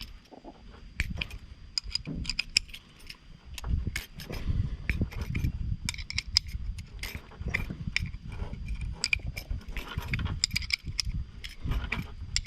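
Irregular metal clicks and clinks of a wrench working the steel bolts of a bolt-type cable swaging tool as they are tightened to squeeze a ferrule onto rigging wire, with a low uneven rumble underneath.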